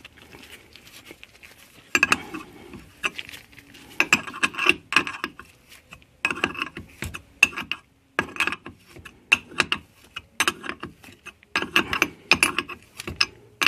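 Steel wrench clicking and clinking in short bursts, about six times, as it turns a -6AN fitting into an aluminium thermostat housing held in a vise.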